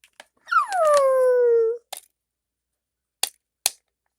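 A child's voice making a dog's whine for a toy dog: one long call that drops steeply in pitch and then holds. It is followed by a few sharp clicks from the plastic toys being handled.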